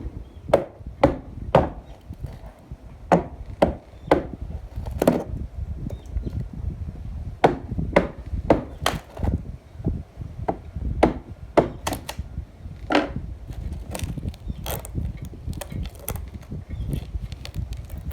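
Irregular sharp knocks of a hand tool striking wood, sometimes several in quick succession, as deck timber is cut back and knocked apart.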